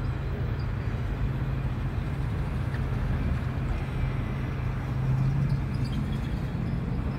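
Steady low rumble and drone of a Union Pacific container freight train moving along the tracks.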